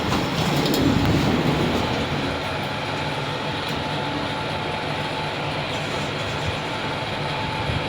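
Fujitec lift car travelling downward, with a steady rumble and hum of the moving car in the shaft.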